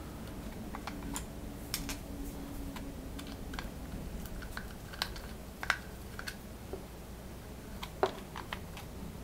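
Small screwdriver backing out the self-tapping M3 screws that hold the end cap of a Proxxon KT70 XY table: irregular light clicks and ticks of the tool on the screw heads and the metal parts being handled, over a faint steady low hum.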